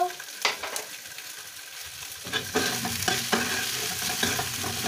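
Tomato wedges, onion quarters and garlic cloves sizzling in oil in a nonstick frying pan. About two seconds in, a utensil starts stirring them around the pan, with repeated scrapes and knocks over the sizzle.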